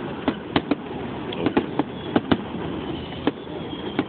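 Fireworks display: a rapid series of sharp bangs from bursting shells, about ten in four seconds, with a few faint high whistles between them.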